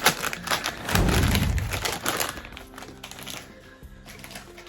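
A foil bag of Ruffles crisps crinkling and rustling as it is handled and opened, with a low thud about a second in. The crinkling dies away after about two and a half seconds, leaving faint background music.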